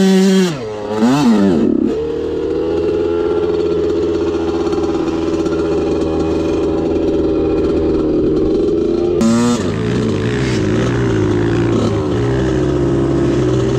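Enduro motorcycle engine close to the microphone: the revs dip and pick up again in the first two seconds, then hold steady while riding. About nine seconds in the throttle is closed and the revs fall to a low idle with a few small blips.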